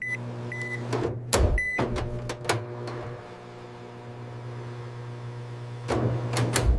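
Microwave oven beeping three times, then running with a steady low hum; a few knocks or clicks come in the first seconds and again near the end.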